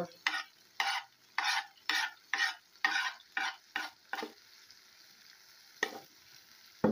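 Kitchen knife scraping chopped coriander off a plastic chopping board into a steel cooking pot, about ten quick scrapes in the first four seconds, then two sharp knocks near the end.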